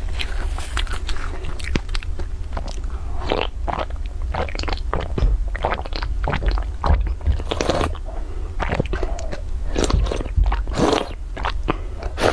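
Close-miked mouth sounds of eating: biting and chewing with wet clicks and crackles, followed by sips and swallows from a drink can.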